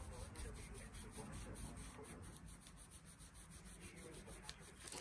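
Faint rubbing and scraping of pliers gripping and working a pin out of a pocket knife's metal frame.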